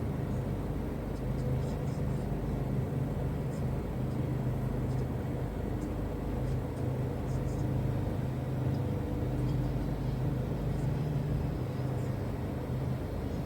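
Car engine idling with the heater blower and defroster running: a steady low hum, with a few faint scattered ticks.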